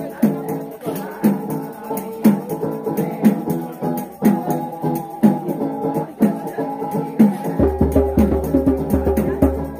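Music with a steady beat, strong strokes about once a second over a melody. The deep bass drops out and comes back in about three-quarters of the way through.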